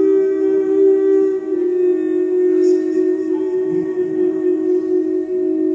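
Metal singing bowl rubbed around its rim with a wooden striker, ringing in a sustained drone that pulses slowly.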